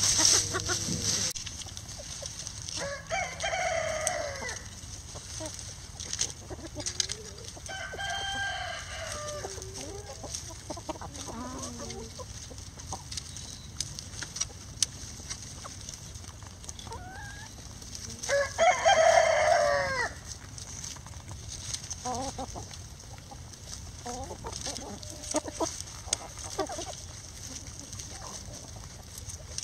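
Chickens clucking while foraging, and a rooster crowing several times; the loudest crow comes about 18 seconds in.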